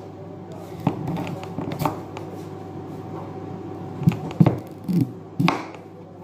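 A serrated kitchen knife cutting through a wedge of raw pumpkin and knocking on the cutting board beneath, in a handful of sharp knocks and short sawing strokes, most of them in the second half.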